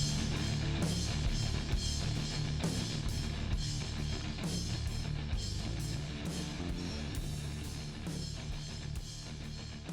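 Rock music with a drum kit and guitar, slowly getting quieter.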